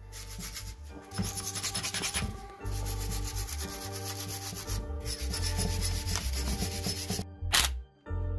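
Hand wire brush scrubbing the dirty outer casing of a BMW E34 limited-slip differential in quick back-and-forth strokes, in three runs with two short pauses. A single sharp knock comes near the end.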